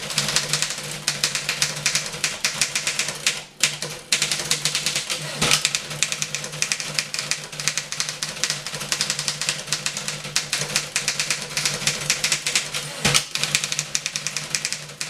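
Rapid typing on a 1912 Underwood No. 5 manual typewriter: a dense stream of type-bar strikes, with short breaks about three and a half and four seconds in. There are two heavier thumps, about five and a half seconds in and again near thirteen seconds, and a steady low hum underneath.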